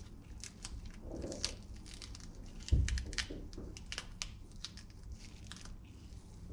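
Crisp crackling and snapping of a raw green pepper being torn apart by hand, with one dull thump a little under three seconds in.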